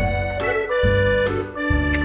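Background music led by an accordion-like reed melody over a bouncy bass line.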